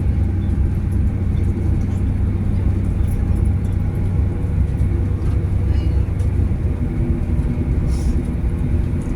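Steady low rumble of a passenger train running, heard from inside the carriage, with a faint hum and a few light ticks and rattles.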